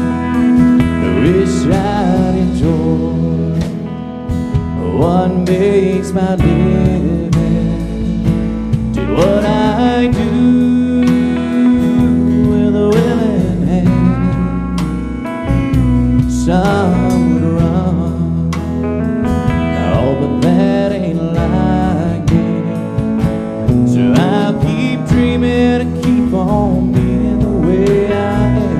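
Live country band playing a song: strummed acoustic guitar, electric bass and drum kit, with a sung melody over them.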